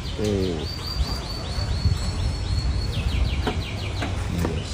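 A bird chirping in quick runs of short, high, falling notes, about seven a second, over a steady low rumble. Near the end come a few sharp clicks as the hatchback's tailgate is unlatched.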